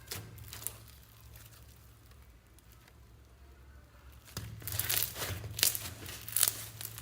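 Slime being squeezed and stretched by hand, giving crackling, popping clicks; quiet for a few seconds, then a rapid run of crackles from a little past the middle on.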